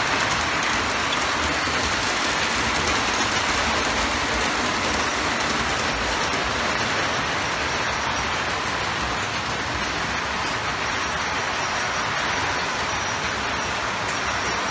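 O gauge model trains running on the layout's track: a steady running noise of wheels on rail.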